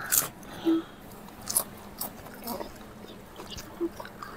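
Crisp snack chips crunching as they are bitten and chewed, in short irregular crunches.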